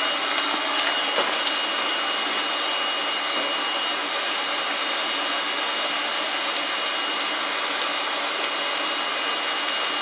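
Blacksmith's forge running: a steady rush of forced air, with a thin high whine held under it and a few faint ticks.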